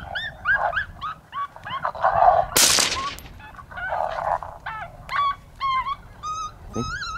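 Coyote yipping and whining: a rapid series of short, high, rising-and-falling cries, several a second. A short burst of rushing noise cuts across it about two and a half seconds in.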